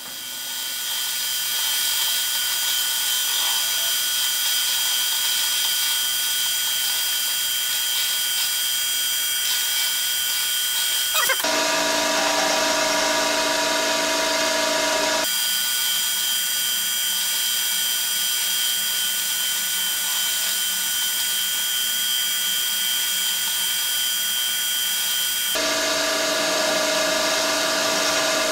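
Milling machine spindle spinning up and running at a steady speed, driving a Wohlhaupter boring head through a shallow boring cut. The tone of the drive changes twice, with a lower hum joining for a few seconds around the middle and again near the end.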